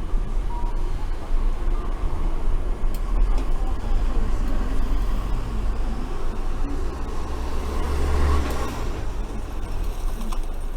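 Randen electric tram running along the line, heard from inside the car: a steady running noise of motors and wheels on the rails. The noise swells briefly about eight seconds in.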